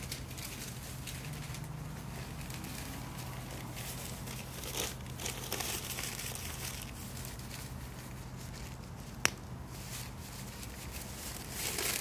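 Wood fire of dry twigs and sticks crackling, with irregular small snaps and one sharp, loud pop about nine seconds in.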